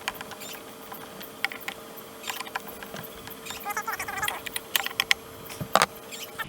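Scattered light clicks and taps of metal hand tools and small engine parts being handled while working on a blower engine, with a cluster of quick clicks about four seconds in and a sharper one near the end.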